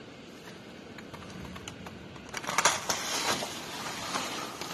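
Heavy storm rain and wind against the house, a steady rush; about two and a half seconds in, a burst of rapid crackling clatter makes it much louder, and it stays louder after.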